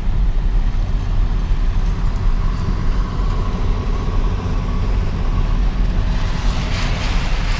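Road noise of a car driving, heard from inside: a steady low rumble, with a hiss that swells and fades near the end.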